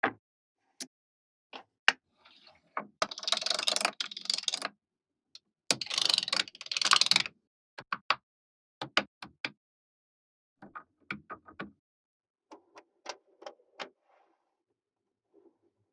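Small magnetic balls snapping together in sharp single clicks, with two stretches of dense rattling about three and six seconds in.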